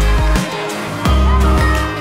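Background music with a heavy bass line and a steady drum beat; the bass drops out briefly about half a second in and comes back about a second in.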